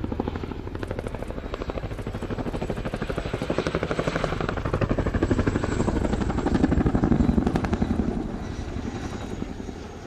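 Boeing Chinook HC2 tandem-rotor helicopter flying past, its rotor blades beating in a fast, even thudding pulse with a faint high whine above. It grows louder to a peak about six to eight seconds in, then eases off.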